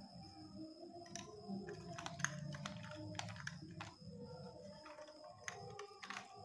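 Faint, irregular clicks and scrapes of a screwdriver and fingers working wires into the brass terminal screws of a switch-and-socket wiring board. The clicks come in clusters, about midway and again near the end.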